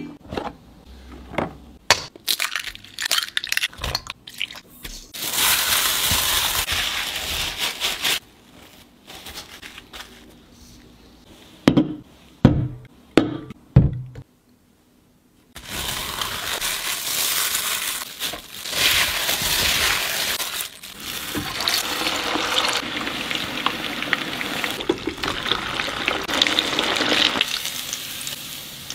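Scattered clinks and taps of cookware, then from about halfway through a long, steady sizzle of chicken pieces deep-frying in hot oil.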